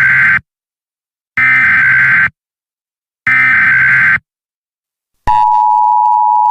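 Emergency Alert System SAME header: three harsh digital data bursts about a second apart, the first already sounding at the start. About five seconds in, the steady EAS attention tone begins.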